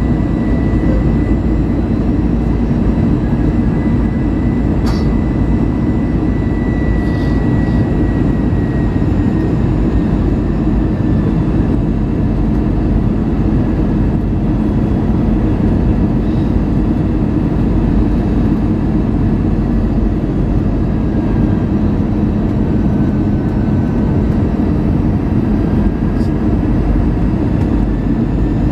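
Steady cabin noise of an Airbus A320 in flight on approach: the jet engines and the rush of air over the fuselage, heard from a window seat beside the wing, deep and even, with a faint steady high whine above it.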